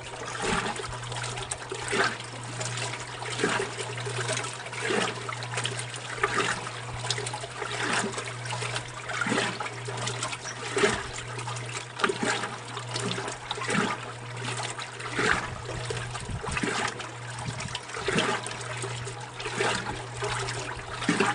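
Old Kenmore wringer washing machine running, with water sloshing in a regular rhythm about every second and a half over a steady motor hum.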